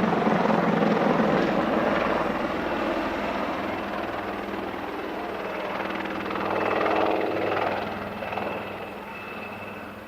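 AgustaWestland Wildcat HMA2 military helicopters flying past: rotor and turbine noise, loud at first and dying away, with a brief swell again about seven seconds in. A thin steady high whine shows near the end.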